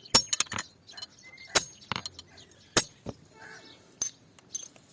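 Sharp hammer strikes on metal, each ringing briefly, coming about once a second with lighter taps in between.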